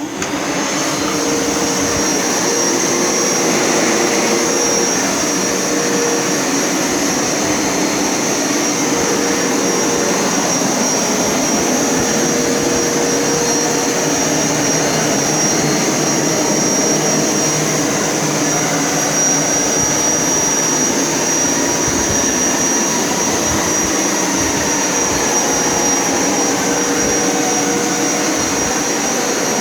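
Hoover Power Scrub Elite upright carpet cleaner switched on and running steadily while shampooing carpet, its motor giving a high steady whine.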